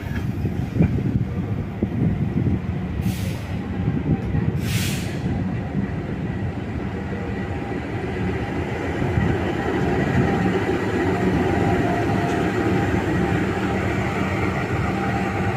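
Electric commuter train running through the station with a steady low rumble, broken by two short hisses of air about three and five seconds in.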